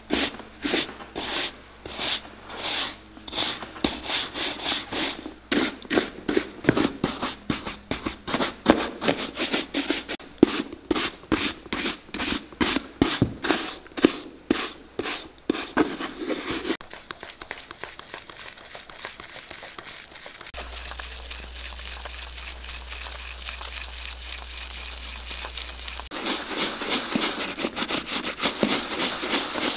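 Stiff bristle brush scrubbing the leather upper of a Dr. Martens boot in quick, regular back-and-forth strokes, a few per second. After about seventeen seconds this gives way to a softer, steadier scrubbing as the brush works a foaming cleaner into the leather, growing louder near the end.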